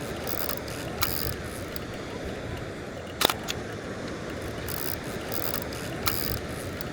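Kowa Six medium format film camera being worked: sharp clicks of the shutter and mirror about a second in, around three seconds and near six seconds, with short ratcheting bursts from winding the film advance, over steady background noise.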